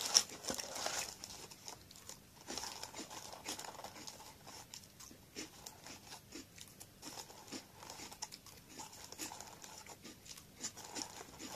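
Plastic snack bag inside a Chocobi box crinkling as a hand rummages in it, loudest in the first second, with crisp snack pieces crunching and being chewed.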